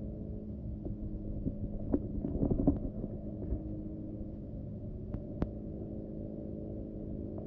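Underwater sound in a pool: a steady low hum, with a few clicks and knocks from the plastic return-jet eyeball and lock ring being handled and fitted into the wall fitting, grouped about two to three seconds in, and two sharp clicks a little after five seconds.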